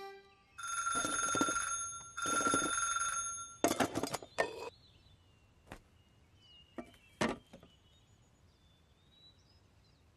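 A bell rings twice, each ring lasting about a second, followed by a quick clatter of clicks and knocks. Faint bird chirps follow, with a couple of single clicks among them.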